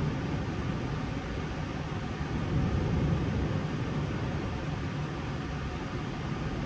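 Steady low rumble and hiss inside an Airbus A320 cockpit as the airliner taxis slowly on idle engine power.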